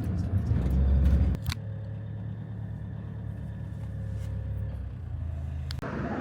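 Camper van engine and road rumble heard from inside the van: loud and low at first, then after a sharp click about a second and a half in, a quieter, steady engine hum.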